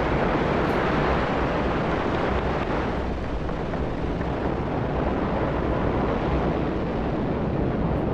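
Ariane 5 rocket lifting off, its solid rocket boosters and main engine giving a steady, rushing roar.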